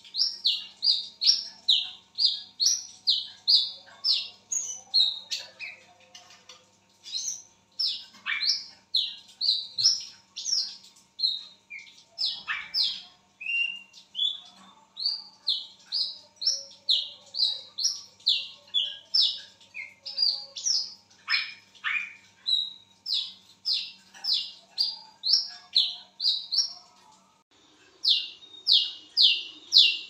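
Brown-throated sunbird (wiceh, kolibri kelapa) calling: a long run of sharp, high chirps at about two to three a second, in phrases broken by short pauses.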